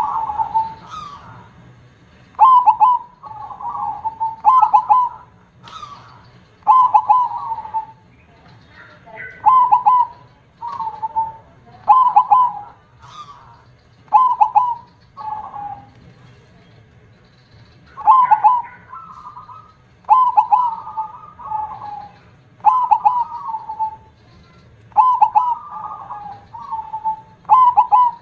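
Zebra dove (perkutut) cooing in full song, with a big voice. It repeats a phrase of quick rolling notes about every two seconds.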